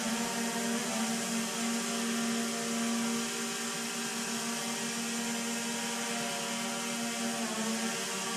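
DJI Air 2S drone hovering close by: a steady whine of its motors and propellers, with a brief change in pitch about seven and a half seconds in.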